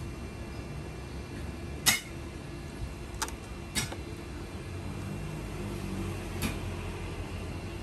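Four sharp clinks of kitchen utensils and dishes being handled, the loudest about two seconds in, over a steady low background hum.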